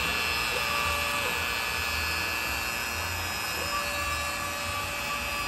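CNC router cutting a shallow engraving in wood: the router spindle runs with a steady high whine, while a lower motor hum from the machine's axis drive ramps in and holds briefly about half a second in, then again from about three and a half seconds on as the carriage moves slowly.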